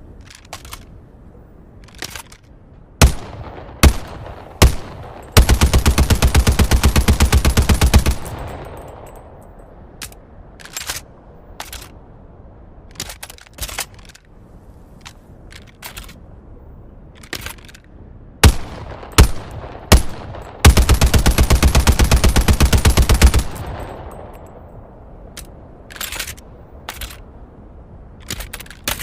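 SMG-32 submachine gun sound effect: three single shots, then a rapid full-auto burst of about three seconds that rings off with an echo. Lighter clicks follow, and the whole sequence repeats: three more single shots, another burst of about three seconds, then a few more clicks near the end.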